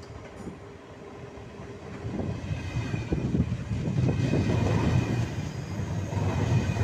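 ÖBB Railjet train passing close by: a low rumble that grows much louder about two seconds in as the locomotive reaches the platform, then the coaches rolling past with wheel clacks and a faint high whine.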